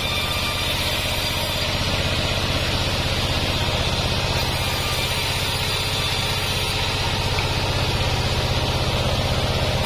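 Band sawmill running under load, its blade ripping a waru-wood plank lengthwise into rafter strips: a steady, rhythmically pulsing low machine hum with an even cutting hiss over it.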